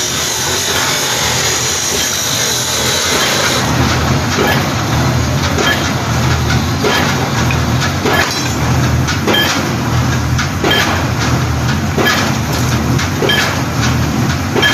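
Mobile pile-driving rig's engine running steadily, with repeated sharp knocks and clanks and a hiss for the first few seconds.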